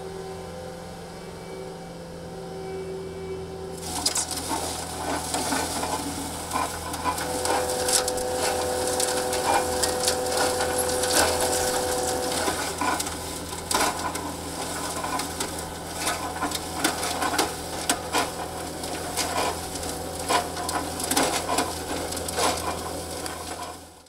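Skid steer loader's engine running steadily while soil and stones rattle and tumble through the EZ-Screen 100's rotating drum screen, a dense clatter that starts about four seconds in. A steady whine joins for several seconds midway, and everything cuts off suddenly at the end.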